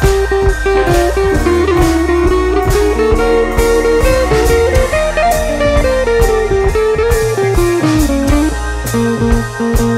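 Background music: a bluesy electric guitar melody over bass and a steady drum beat.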